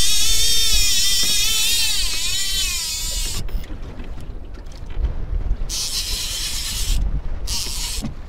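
Fishing reel's drag screaming as a hooked shark pulls line off, a high wavering whine that dips in pitch and cuts off after about three seconds. After that, wind on the microphone and short bursts of hiss.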